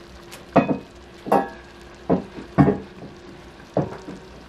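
Five short knocks and clunks of cookware at a cast-iron pot on the stove top, a couple with a brief metallic ring.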